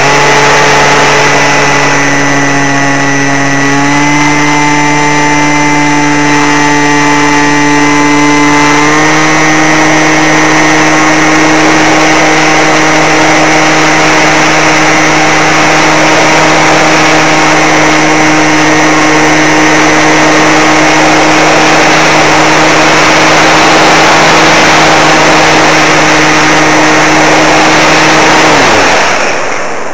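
Electric motor of a Zoom RC model plane running with a steady whine over a loud rushing noise. Its pitch steps up slightly about four and nine seconds in, then falls away as the motor winds down near the end.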